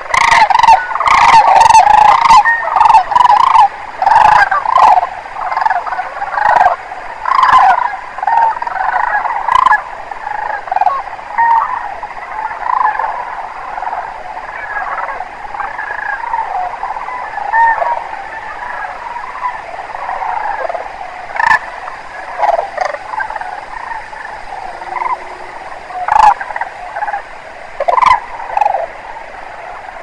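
A large flock of sandhill cranes calling: many overlapping rolling, rattling calls, dense and loud for the first several seconds, then thinning to scattered calls with a few louder ones later.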